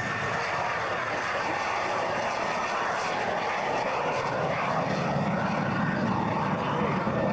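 Grumman F9F Panther's jet engine at takeoff power as the jet lifts off and climbs away: a steady rushing noise that grows slightly louder toward the end.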